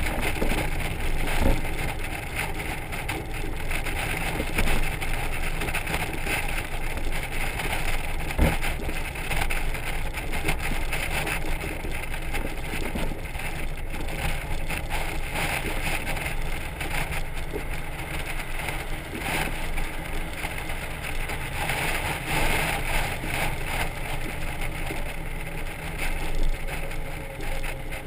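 Honda Gold Wing motorcycle towing a trailer at road speed, heard from a camera mounted on the trailer: a steady rumble of wind, tyre and engine noise, with two sharp knocks, near the start and about a third of the way in.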